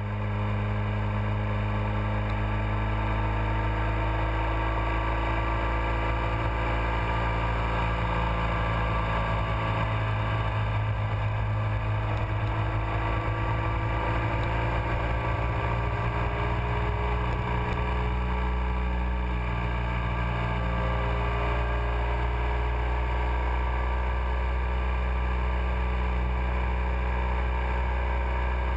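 Motorcycle engine running steadily at road speed, heard from a camera mounted on the moving bike, with heavy wind and road noise; the engine pitch drifts slightly up and down as the speed changes.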